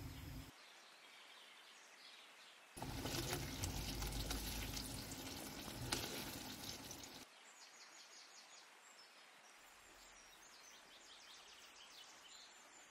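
Thick Korean chili sauce sizzling and bubbling in a frying pan as it is stirred with a silicone spatula, loud for about four seconds in the middle, then cutting away to something much quieter.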